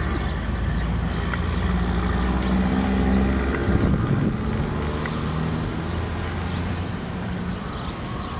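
Freight train passing close by, its cars rolling on the rails with a steady low rumble.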